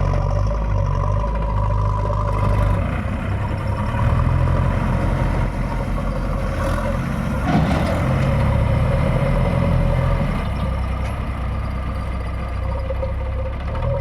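Diesel engine of a JCB 3DX backhoe loader running under changing load while digging and loading mud, its note shifting several times, with a single sharp clank about halfway through.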